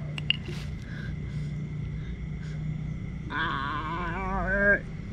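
A man groaning in pain, a shaky, wavering cry that starts about three seconds in, rises in pitch and breaks off. A single click comes near the start, over a steady low hum.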